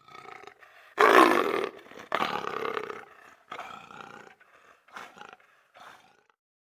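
Leopard calling: a series of rough roaring calls, the two loudest about a second in, then shorter, fainter calls trailing off.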